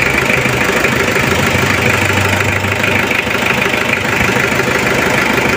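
Freshly overhauled Mitsubishi 4D56 four-cylinder diesel engine idling steadily with an even diesel clatter, running smoothly after the rebuild.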